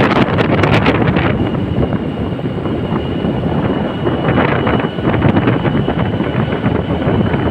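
Wind buffeting the microphone over the noise of travelling along a road, with a thin steady high tone joining about a second in.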